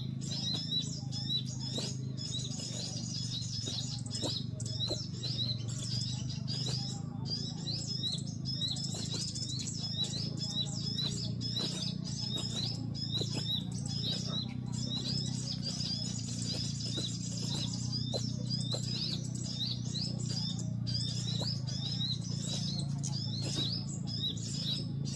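Small songbird calling continuously in rapid, repeated short high chirps, over a steady low hum.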